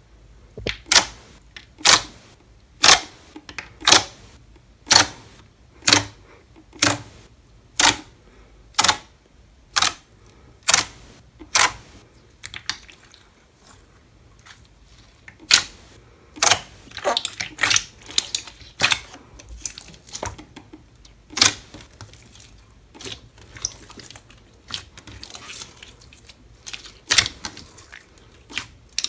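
Slime being pressed, giving sharp popping clicks about once a second for the first twelve seconds or so, then a looser, irregular run of smaller pops and crackles.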